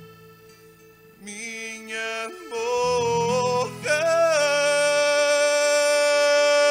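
Solo singing voice with quiet instrumental backing in a Portuguese student tuna's song: the voice sings a short phrase that climbs in pitch, then holds one long, loud note from about four seconds in.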